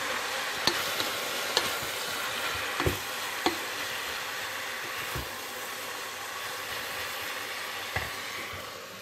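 Chopped leeks sizzling as they are stir-fried in butter in a stainless steel pot, a steady hiss that eases slightly near the end. A wooden spoon stirs them, knocking sharply against the pot about seven times.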